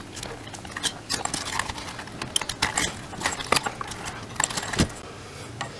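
Light, irregular clicks and taps of small metal tools against a circuit board while a resistor is desoldered from a TV power-supply board.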